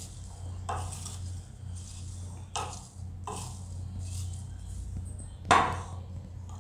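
Diced guava and tomato being tossed in a glass bowl with a wooden spatula: a few short, soft scrapes and knocks against the glass, the loudest about five and a half seconds in.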